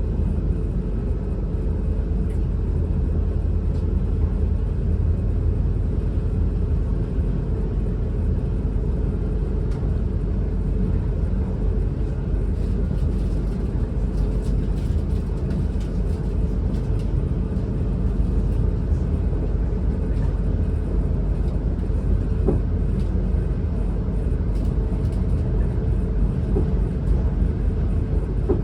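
Cabin noise inside a Class 444 Siemens Desiro electric multiple unit on the move: a steady low rumble from the wheels on the rail, with a faint steady hum and a few light ticks.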